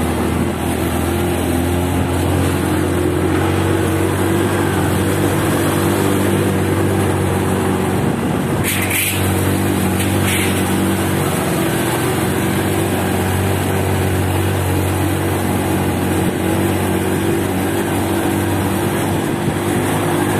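Small motorcycle engine running steadily under load, climbing with a passenger and heard from the pillion seat. Two brief hissing sounds come about halfway through.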